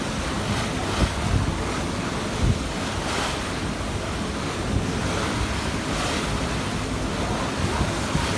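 Wind rushing over the microphone aboard a moving boat, with the wash of water beneath and brief low thumps from gusts hitting the microphone now and then.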